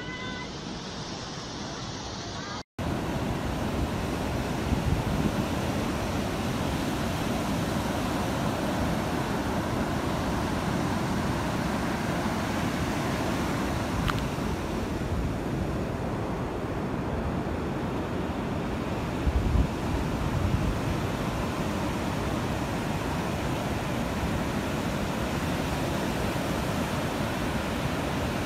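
Floodwater rushing at first, then after a brief dropout a steady roar of wind buffeting the microphone mixed with surf from a rough sea, with louder gusts about five and nineteen seconds in.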